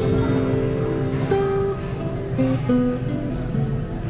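Background music led by a plucked acoustic guitar, playing a slow melody of held notes.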